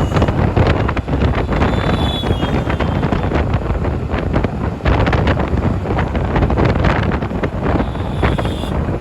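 City road traffic with engine and road noise, and wind buffeting the microphone throughout; faint high tones come through about two seconds in and again near the end.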